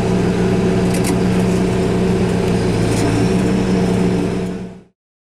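Versatile four-wheel-drive tractor's diesel engine running steadily, a low even drone heard from inside the cab. It fades out near the end.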